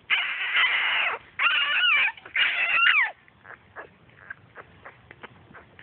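Newborn blue-nose pit bull puppies crying: three loud, high squealing cries in the first three seconds, the pitch sliding up and down, then only faint small sounds.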